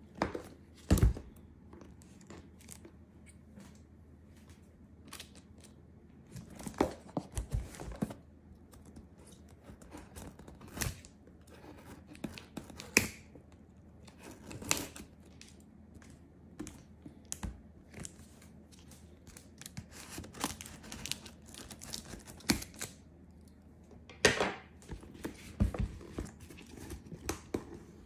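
A cardboard shipping box with a clear plastic document pouch being handled and turned over: irregular crinkling and rustling of the plastic, with scattered sharp knocks and scrapes of the cardboard.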